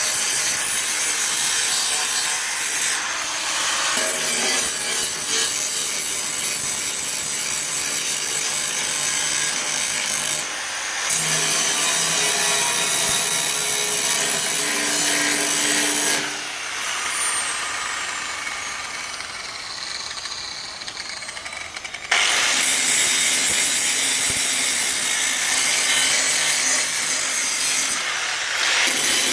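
Angle grinder with a grinding disc working down weld beads on a car's metal bodywork: a loud, harsh grinding that breaks off briefly a couple of times. Past the middle it lifts off the metal for several seconds while the disc's whine falls away, then it bites back in.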